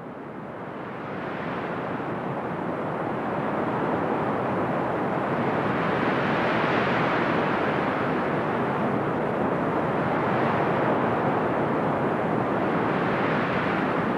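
Steady rushing noise that fades in over the first few seconds, then swells and eases slowly every three or four seconds.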